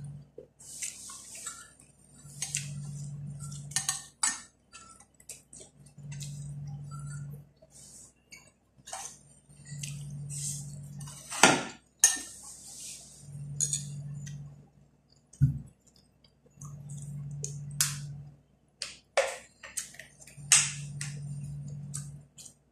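Metal spoon and fork clinking and scraping against plates and a food container while eating, in irregular short clicks with a few longer scrapes. Under them, a low hum comes and goes, on for about a second and a half every three to four seconds.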